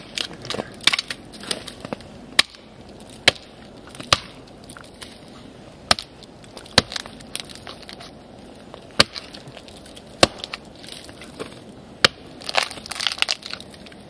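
Axe chopping and prying at the bark of a beetle-killed pine: a series of sharp, irregularly spaced knocks as the blade strikes, with cracking and tearing as slabs of bark are pried loose near the start and again near the end.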